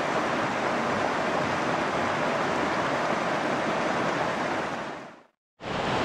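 Steady rush of fast-flowing river water, swollen with rain. It fades out about five seconds in, and after a short gap a similar rush starts again near the end.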